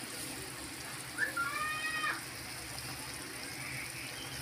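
Pot of pork and bok choy soup boiling with a steady bubbling hiss. About a second in, a short high call with an arching pitch, like a cat's meow, lasts about a second.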